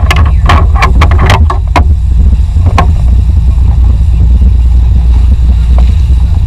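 Loud, steady low rumble of the sport-fishing boat's engines under way, mixed with wind on the microphone. A quick run of sharp clicks and knocks comes in the first two seconds, and one more a little before three seconds.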